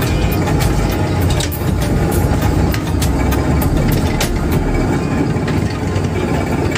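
Fishing boat's engine running steadily, a loud low rumble on deck, with scattered short clicks and knocks.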